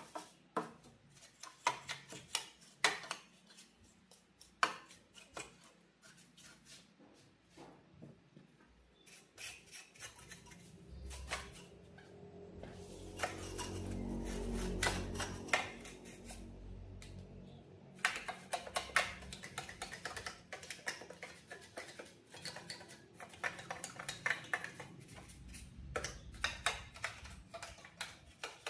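Light clicks and metallic clinks of tools and small parts being handled during an electronics repair, irregular throughout. About ten seconds in, a low rumbling noise swells up and fades away again over several seconds.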